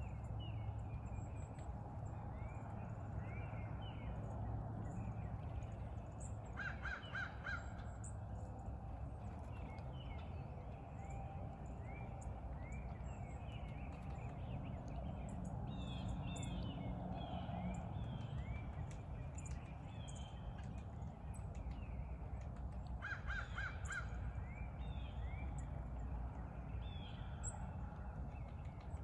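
Crows cawing in two short runs of about three quick caws each, one about seven seconds in and one around three-quarters of the way through. Small birds chirp throughout over a steady low background rumble.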